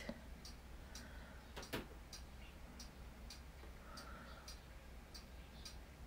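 Faint, regular ticking, about three ticks a second, over quiet room tone with a low steady hum.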